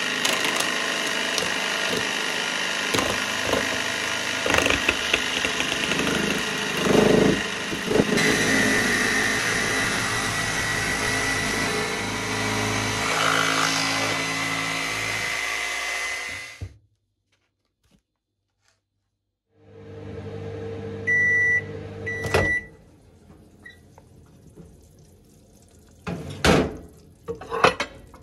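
Electric jigsaw running steadily for about sixteen seconds as it saws through a frozen lasagna in its foil tray, then cutting out suddenly. After a short gap, a microwave oven hums, with two short high beeps and then a few clicks and knocks near the end.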